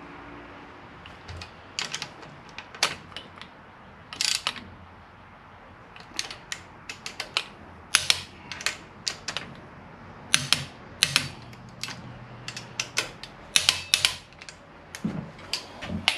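Socket ratchet clicking in short, irregular runs as the ARP mounting bolts of a Melling oil pump are run down into the engine block.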